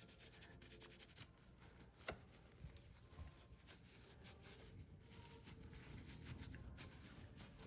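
Near silence: faint rubbing as a steel knife liner is hand-polished with Flitz, with a light click about two seconds in.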